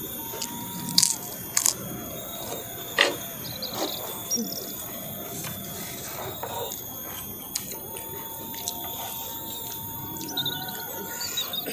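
Eating sounds: a few sharp crunches and clicks in the first four seconds as kerupuk crackers are bitten and spoons knock against the metal tray. Birds chirp near the end.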